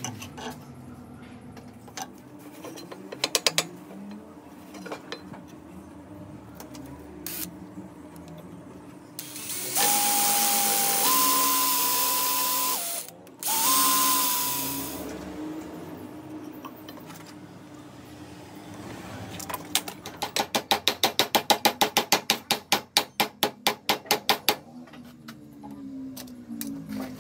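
An electric drill runs in two spells of about three and two seconds, a steady motor whine over the noise of the bit boring into a wood block. Later comes a fast, even run of ratcheting clicks, about seven a second, lasting about four seconds.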